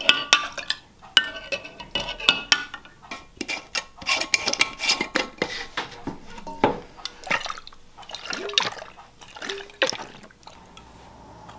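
Liquid splashing and glass clinking in a half-gallon glass mason jar as hard-boiled eggs go into vinegar and beet brine and are pushed down among the sliced beets, a quick run of knocks and clinks. About ten seconds in the lidded jar is tipped, sloshing the brine.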